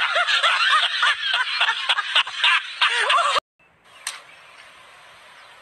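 High-pitched laughter, many overlapping giggles in quick rising-and-falling peals, which cuts off suddenly about three and a half seconds in. A faint hiss follows, with one soft tap.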